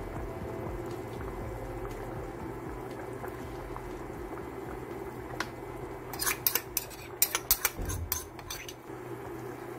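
Pollock and tofu stew simmering in a stainless steel pot, bubbling steadily. From about six seconds in, a metal spoon clinks sharply against the pot a dozen or so times in quick succession, with a dull knock near the end.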